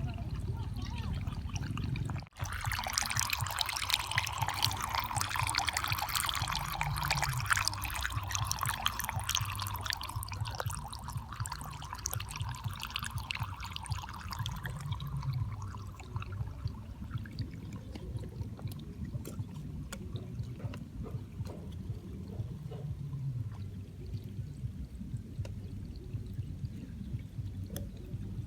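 Water pouring and trickling from a homemade tabletop mini waterfall. The flow stops briefly about two seconds in, is strongest just after, and settles to a softer trickle over a low steady hum.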